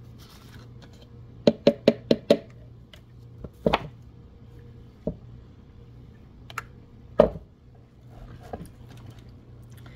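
Plastic clicks and knocks from a personal blender's cup and blade base being twisted apart and handled: a quick run of five clicks, then a few single knocks as the parts are set down on a wooden table.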